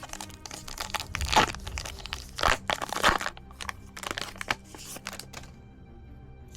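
Foil trading-card pack wrapper being torn open and crinkled by hand, a run of sharp crackles that dies away about five and a half seconds in.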